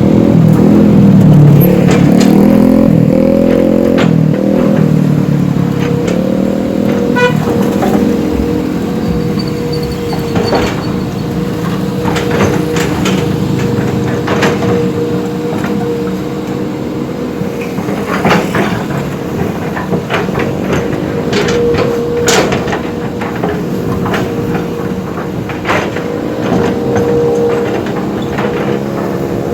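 Large diesel earthmoving machine's engine running, revving up and down in the first few seconds and then running steadily, with scattered sharp metallic clanks and knocks, the loudest near the middle of the stretch.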